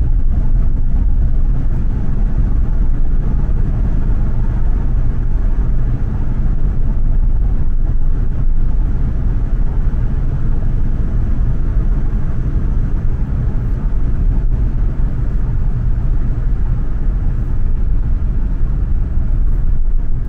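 Car road noise: a steady low rumble of engine and tyres from inside the moving car as it drives through a rock tunnel.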